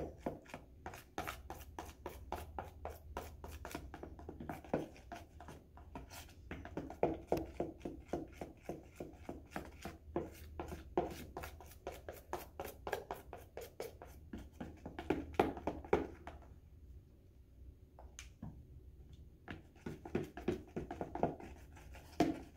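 Plastic utensil stirring and scraping slime in a plastic bowl as liquid starch is worked into glue: a quick, irregular run of clicks and taps against the bowl, with a short pause about three quarters of the way through.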